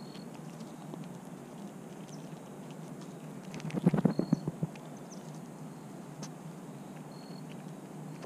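Squirrel foraging in birdseed right at the microphone, with a quick flurry of scratchy knocks and rustles about halfway through as its body brushes against the camera.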